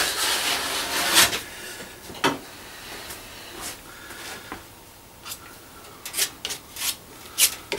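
A broad filler knife scraping body filler across a plywood cabinet top for about a second, then a run of short, sharp scrapes as a spreader presses filler into a hole in the side.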